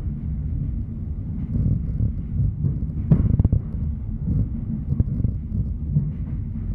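ED4M electric multiple unit heard from inside the passenger car: a steady low rumble of the car running along the track. A quick clatter of wheel knocks comes about three seconds in, and a single click follows about two seconds later.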